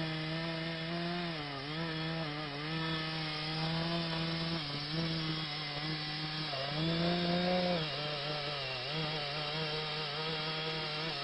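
Gasoline chainsaw running at high revs while cutting into a tree trunk. Its engine note dips several times as the chain bites in and loads up, and rises briefly about seven seconds in.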